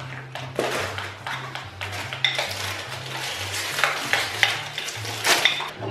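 Metal spoon stirring a thick cream in a ceramic bowl, scraping and clinking against the sides again and again. A plastic biscuit wrapper crinkles as it is torn open.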